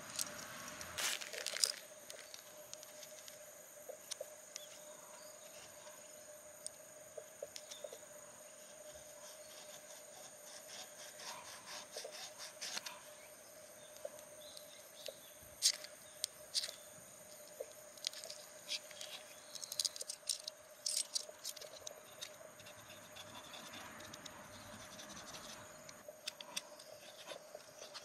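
A car key scraped against a ferrocerium fire-starter rod in short, scattered strokes with pauses between; the key's edge fails to light the tissue tinder. Faint steady insect chirring underneath.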